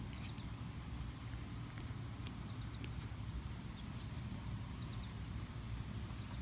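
Outdoor ambience: a steady low rumble, with faint short high bird chirps in quick little groups of two or three about halfway through and again near the end.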